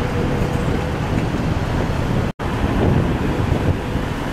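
Steady road traffic rumble mixed with wind buffeting the microphone, broken by a momentary dropout to silence a little past halfway.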